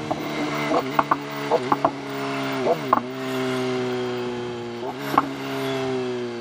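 BMW S1000RR's inline-four engine running at a steady cruise, its pitch dipping briefly and recovering about three seconds in. Sharp clicks and knocks come in a cluster in the first three seconds and once more about five seconds in.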